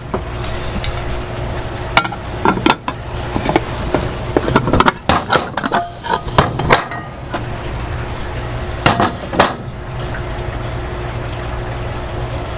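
Cast iron skillet knocking and clanking against a plate and a steel shelf as cornbread is turned out of it: a run of sharp knocks about two to seven seconds in, and two more near nine seconds. A steady low hum runs underneath.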